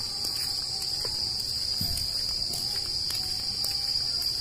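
Steady, high-pitched drone of insects holding one unbroken pitch.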